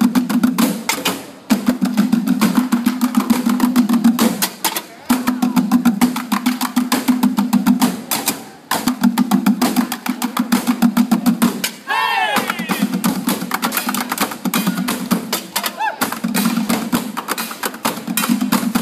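Several drummers beating sticks on hollow plastic barrel drums in a fast, driving rhythm, played in phrases broken by short pauses. A sliding shout from the performers cuts in about twelve seconds in.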